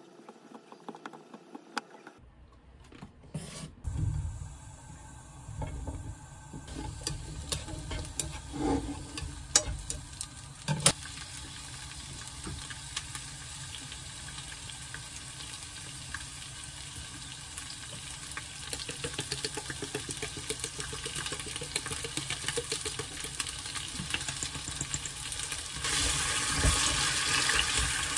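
Faint knife taps on a wooden cutting board at first, then sausages and bell peppers sizzling in a frying pan, with scattered clicks as ingredients go in and chopsticks stir. The sizzle grows louder near the end as the sauce is stirred through.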